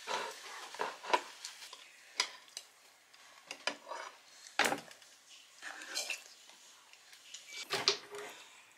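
Cutlery clinking on dishes as people eat: metal chopsticks, forks and spoons tapping and scraping on plates and bowls in scattered clicks, the sharpest a little past halfway.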